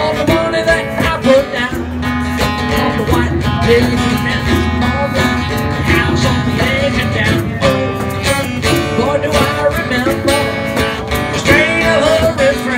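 Live acoustic band playing an instrumental stretch of a country-rock song: strummed acoustic guitar with hand drums under a bending lead melody.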